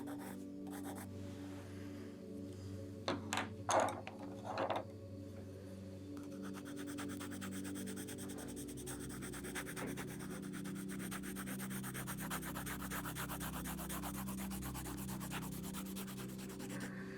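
A drawing tool rubbing and scratching on paper: a few separate strokes about three to five seconds in, then rapid back-and-forth shading strokes for the rest of the time, over soft background music.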